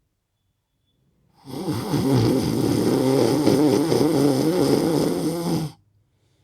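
Ujjayi pranayama breath: one slow breath of about four seconds drawn in through the nose with the tongue against the palate. The narrowed throat makes the air rasp with a snoring sound. It starts about a second and a half in and stops sharply.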